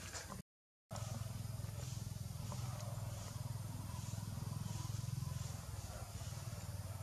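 Outdoor ambience: a steady low hum with faint high chirps repeating about every two thirds of a second. The sound drops out for about half a second, half a second in.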